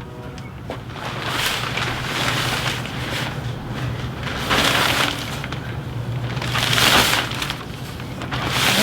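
Crinkling and rustling of a cover sheet being pulled and wrapped over a machine, coming in repeated swells. A steady low hum runs underneath.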